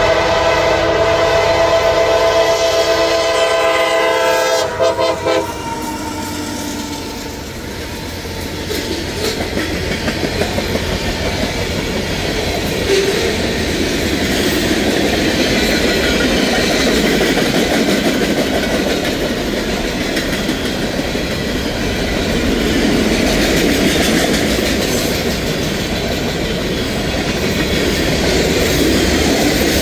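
CSX freight locomotive's multi-tone air horn blowing for a grade crossing for about five seconds, breaking off briefly a couple of times near the end. Then the manifest freight's tank cars roll past with a steady rumble and a rhythmic clickety-clack of wheels over rail joints.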